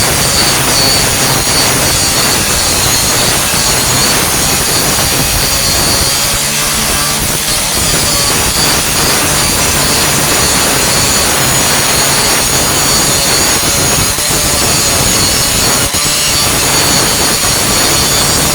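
Angle grinder with a grinding disc working over welded steel sheet metal, grinding the patch welds flush on a truck tailgate. It runs steadily, a continuous abrasive grinding noise with a constant high whine.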